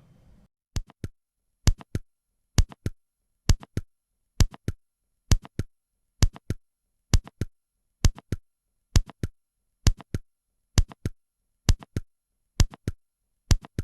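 Synthesized heart sounds of mitral valve prolapse: a steady rhythm of about one beat a second. Each beat is a group of three sharp clicks: the first heart sound, a systolic click, and the second heart sound.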